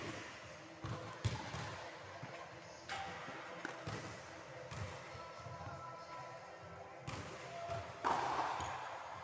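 Tennis balls struck by rackets and bouncing on a wooden sports-hall floor: irregular sharp pocks a second or more apart, echoing in the large hall. A louder rush of noise lasts about a second, about eight seconds in.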